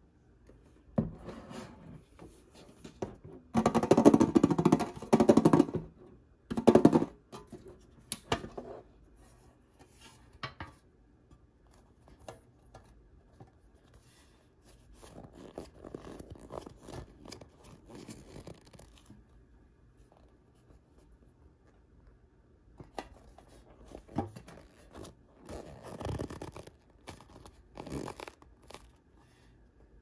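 Toy blind-bag packaging being handled and opened by hand: bursts of crinkling and tearing, loudest from about 4 to 6 seconds in, with quieter rustling later.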